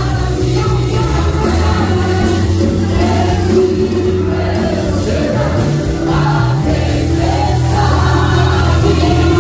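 Music: a choir singing over steady held low bass notes.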